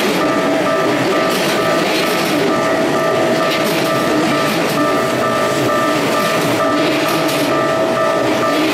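A Keikyu electric train passing slowly over a level crossing, its wheels clattering on the rails. A crossing warning bell rings in a fast, steady rhythm over the train noise.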